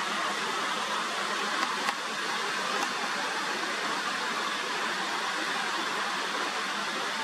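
Steady rush of falling water, an even hiss with no breaks, with a couple of faint clicks about two seconds in.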